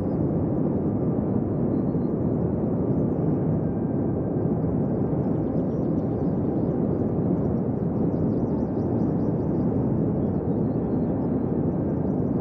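A steady rushing, rumbling noise with no distinct tones.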